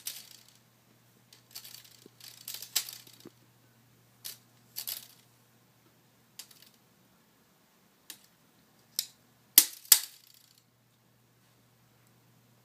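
A metal tape measure clattering and rattling in irregular bursts as a kitten bats at it. The two loudest clacks come close together near the end.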